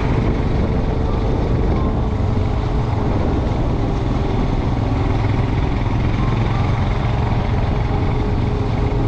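Motorcycle engine running steadily while riding along at a cruise, heard from on the bike as an even, low drone under a rush of road noise.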